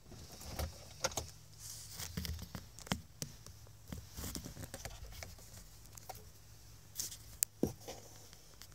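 Rustling and scattered clicks as the camera is handled inside the car, with a sharp click about a second in, another about three seconds in, and a brief loud one near the end. A faint steady low hum sits underneath.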